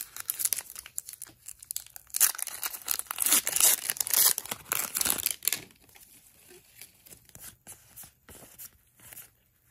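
Foil wrapper of a Magic: The Gathering collector booster pack being torn open and crinkled for about five and a half seconds, then faint scattered clicks and slides as the cards are handled.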